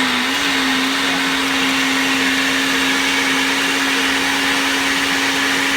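Countertop blender motor running steadily as it purées cooked onion, tomato and cashews into a curry paste. Its pitch wavers briefly at the start, then holds steady.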